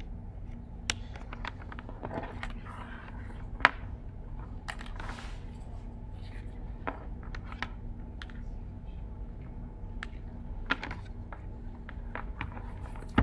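Steady low hum of room noise with scattered clicks and knocks, the sharpest about three and a half seconds in, and brief rustling near two and five seconds in.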